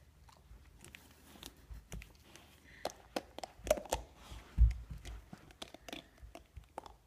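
A dog mouthing and chewing a hollow plastic Easter egg: irregular clicks and crunches of teeth on plastic, with one dull thump about four and a half seconds in.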